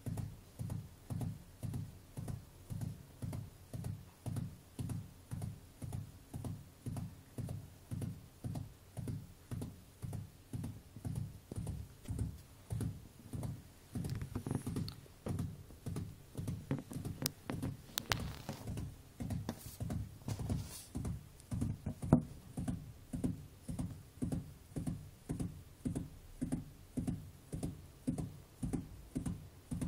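Gerbil drumming its hind feet: a steady, even run of dull thumps, about three every two seconds, with a few sharper clicks midway and one louder knock about 22 seconds in.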